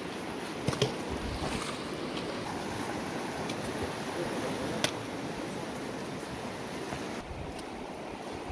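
Shallow river water rushing steadily over rocks and stones, an even rush with a few short clicks.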